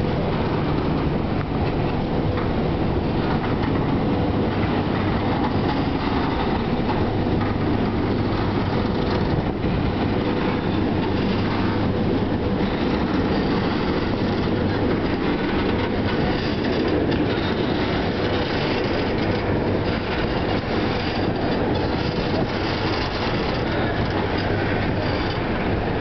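Passenger train rolling steadily past along the platform, its wheels clacking over the rail joints, with a steady electric hum underneath.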